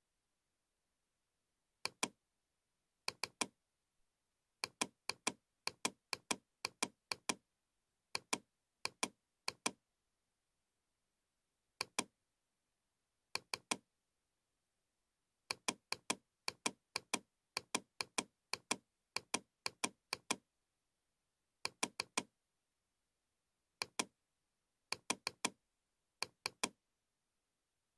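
Computer mouse button clicking dozens of times at irregular spacing, in quick runs of several a second with pauses between. Each click is a sharp press-and-release pair, and each one sets a point along a spline in CAD software. Dead silence lies between the clicks.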